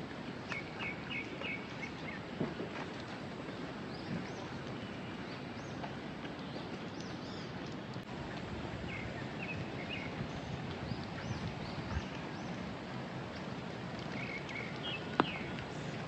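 Steady rain falling, with birds chirping in short runs near the start, about midway and near the end. A single sharp tick sounds about 15 seconds in.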